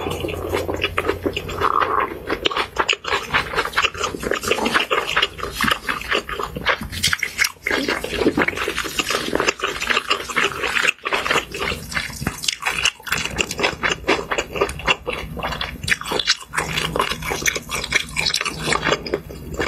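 Eating sounds: a person chewing and crunching fried pork cutlet and spicy noodles, a dense run of short crackling crunches.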